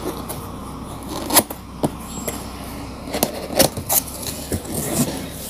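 Hands handling a cardboard box: scraping and rubbing on the cardboard, with several sharp knocks and taps as it is turned over.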